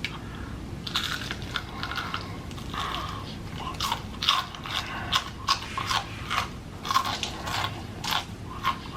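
Close-miked chewing of a big crunchy mouthful of food, with irregular wet crunches about twice a second.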